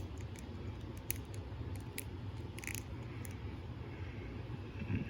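Light handling noises: a few short plastic clicks and crinkles, spaced about a second apart, as a G.I. Joe action figure is turned over in the hands, over a low steady hum.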